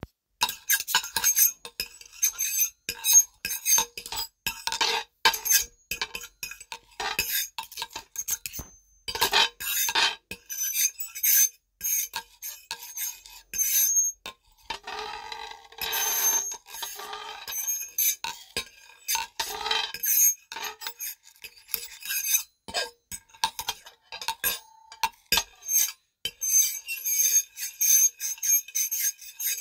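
Table knife scraping and squeaking across a plate in many short, quick strokes, each with a shrill, high squeal. Around the middle the strokes run longer and closer together.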